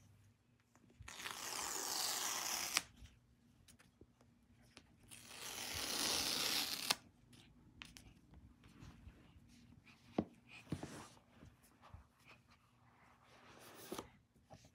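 Two long tearing rasps, each lasting about two seconds and ending in a sharp snap. This is the paper pull-tab strips being torn off the back of a MacBook Pro box to break its seal. Light knocks and rustles of the cardboard box being handled follow.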